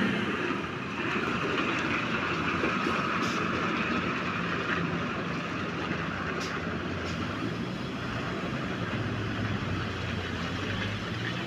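Heavy diesel truck's engine running steadily as it rounds a hairpin bend, with a continuous hiss.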